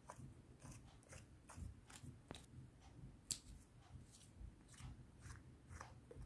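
Clear slime being mixed, making faint sticky clicks and pops about twice a second, with one sharper pop a little past three seconds in.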